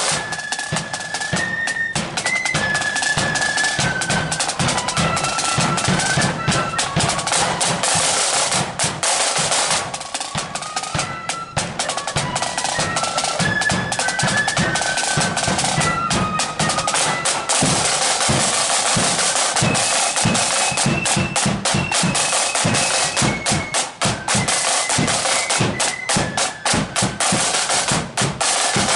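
Marching flute band playing: flutes carry a stepping melody over rapid snare-drum rolls and steady bass-drum beats.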